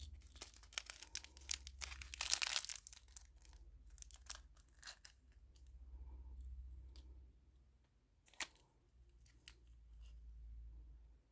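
Packaging being crinkled and torn open by hand, a dense crackling over the first three seconds, then scattered light clicks and taps of small pieces being handled, with one sharper click about eight seconds in.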